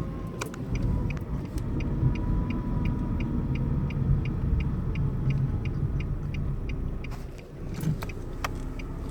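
2013 Nissan Versa heard from inside the cabin while driving: steady low road and engine rumble with a faint thin whine, of the kind blamed on the CVT. Through the middle, even light ticks about two and a half a second, like a turn-signal relay, with a few sharper knocks near the end.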